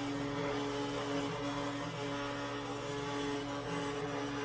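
Genmitsu PROVerXL 4030 V2 desktop CNC router V-carving half-inch plywood: the spindle motor runs steadily over a low hum. The stepper motors whine in tones that break and change pitch every second or so as the gantry moves the bit.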